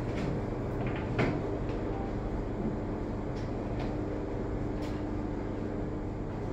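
Steady low rumble with a faint hum, broken by a few light clicks and knocks.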